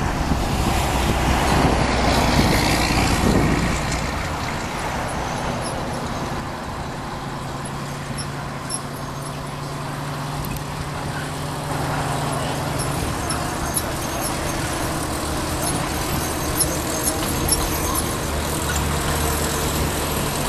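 1928 Plymouth gasoline locomotive's engine running steadily with a low hum as it hauls narrow gauge passenger cars past. It is loudest over the first few seconds, dips, and grows again as the locomotive comes alongside.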